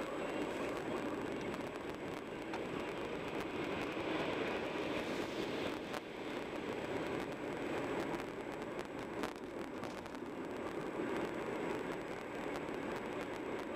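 Steady road and engine noise of a moving car heard from inside the cabin, swelling briefly as an oncoming truck passes about five seconds in.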